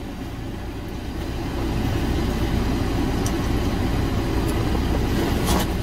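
Steady low rumble like a motor or engine running in the background, growing a little louder after a second or two, with a few light clicks and the rustle of clothes being handled.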